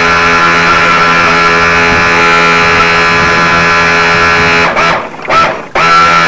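Radio-controlled model speedboat's motor running steadily at speed, heard close up from a camera on the boat. Near the end it drops out twice in quick succession, then spins back up.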